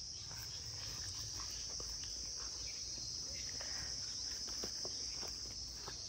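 Steady high-pitched chorus of insects in the field, with a few faint soft ticks scattered through it.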